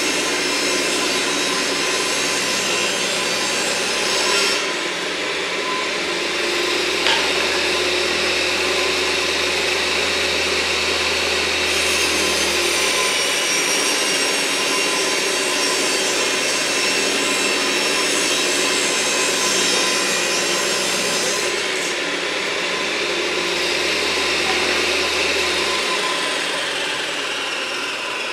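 Table saw running and ripping wooden boards lengthwise to width; the steady sound of the blade in the wood changes a few times as boards are fed through.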